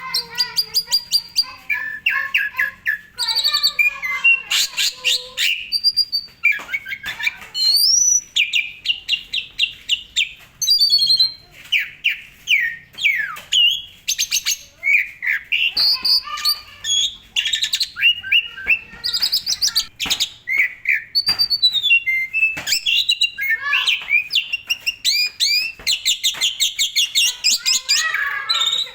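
Asian pied starling (jalak suren) singing a long, varied song without pause: quick runs of whistles, chirps, trills and fast rattling notes, packed with mimicked calls of other birds.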